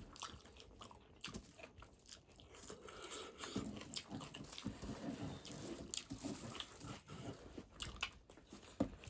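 A person chewing pork feet close to the microphone: irregular biting, crunching and chewing noises, busier after the first few seconds.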